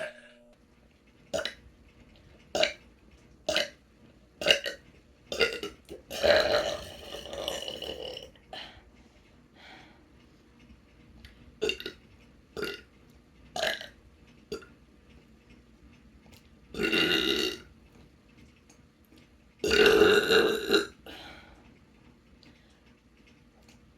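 A person burping over and over, belly-inflation burps from swallowed air: a run of short burps about a second apart, and longer, drawn-out burps about six, seventeen and twenty seconds in.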